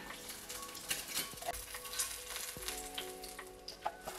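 An egg frying in oil in a frying pan, sizzling and crackling, with short clicks and scrapes of a spatula against the pan.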